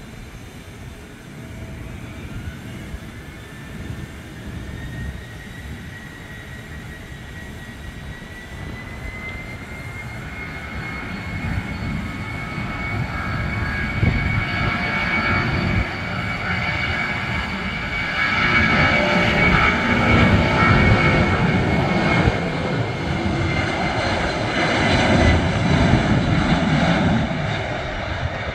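Boeing 767-200 freighter's twin turbofan jet engines spooling up to takeoff thrust and running through the takeoff roll. A fan whine rises in pitch over the first ten seconds and then holds steady, while a deep rumble swells, loudest about two-thirds of the way through as the jet passes.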